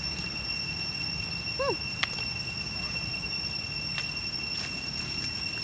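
A steady high-pitched whine over a low rumble, with one short squeaky animal call about one and a half seconds in and a couple of faint clicks.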